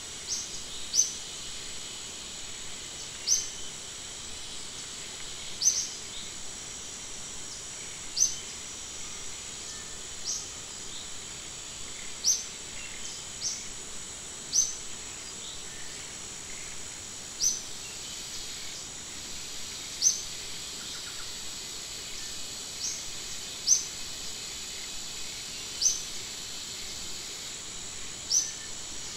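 Forest ambience: a steady, high insect drone, with a bird repeating a short, high chirp about every two to three seconds.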